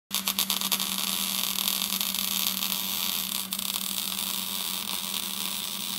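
A steady hiss with a low, even hum beneath it, pulsing a few times in the first second.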